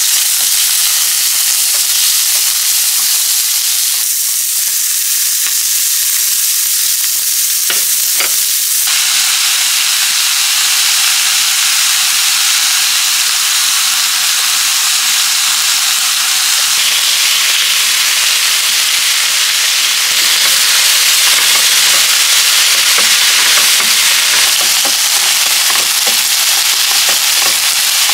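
Meat and vegetables sizzling loudly in a hot nonstick frying pan, a dense steady frying hiss, with a few clicks of the spatula stirring. The sizzle grows fuller about nine seconds in.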